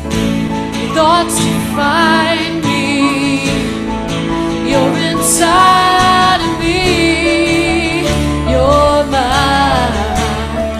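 Worship song: a singer holding long notes with vibrato over a steady instrumental accompaniment.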